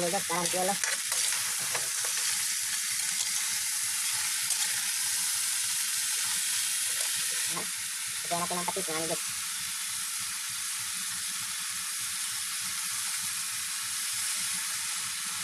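Mud crabs frying in a wok with a steady sizzle, stirred with a metal ladle at first; the sizzle eases slightly about eight seconds in.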